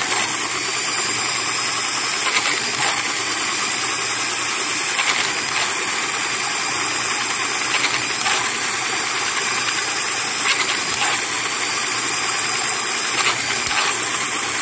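Grinding wheel in a homemade lathe jig grinding the weld-rebuilt lobe of an Isuzu 4JJ diesel camshaft back to shape: a steady high, hissing grind with brief louder scrapes in pairs about every two and a half seconds, over a faint motor hum.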